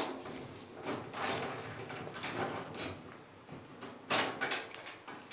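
Nut driver turning out a 5/16-inch hex-head screw from the sheet-metal lid bracket of a dryer cabinet: metal scraping and clicking as the driver works the screw, with a sharper clatter about four seconds in.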